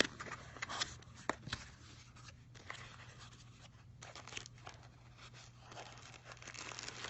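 A product box and its packaging being opened by hand: faint scraping, tearing and crinkling with scattered light clicks.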